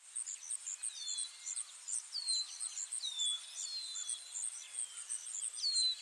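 Forest wildlife ambience: short high chirps repeat steadily several times a second, over falling whistled bird calls that come about once a second.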